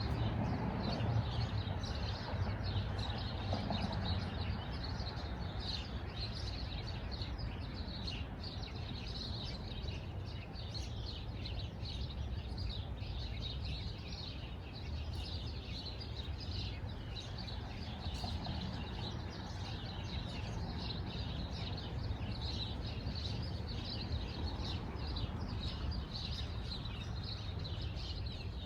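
Small birds chirping, many short chirps overlapping without a break, over a steady low outdoor rumble.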